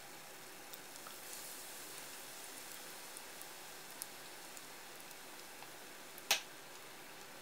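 Battered chicken tempura deep-frying in hot oil: a steady sizzling hiss with scattered small crackles, and one sharp, louder crack about six seconds in.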